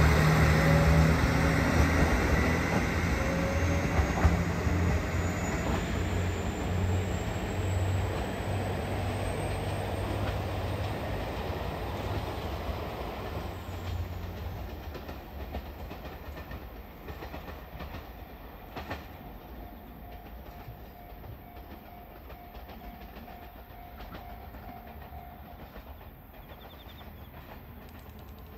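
JR Hokkaido KiHa 201 series diesel railcar train pulling away: a low diesel engine drone with a rising whine as it picks up speed, fading steadily as the train recedes into the distance.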